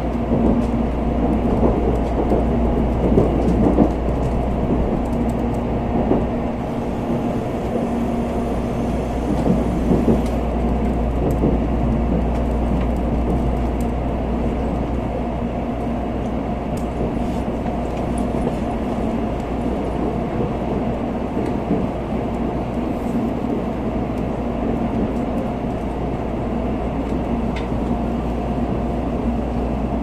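Cabin noise of an N700A Shinkansen train rolling into a station: a steady low rumble of wheels and running gear with a constant hum, and irregular clatter over rail joints and points, strongest in the first ten seconds.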